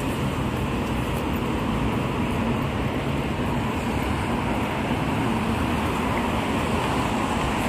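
Steady road traffic on a busy city street: an even rush of passing cars, with no single vehicle standing out.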